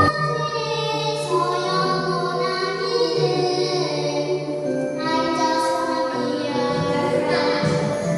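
Choir with children's voices singing a Korean children's song in long held notes over a steady instrumental accompaniment.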